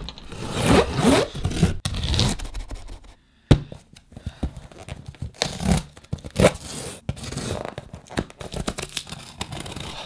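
Utility-knife blade slicing through packing tape on a cardboard box, then tape peeled and torn off the box, with cardboard scraping and rustling in repeated strokes. A short pause is followed by a sharp click about three and a half seconds in.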